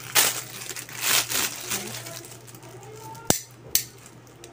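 Plastic packaging crinkling and tearing as it is pulled open, then two sharp plastic clicks about half a second apart a little past three seconds in, as the blue plastic item is handled.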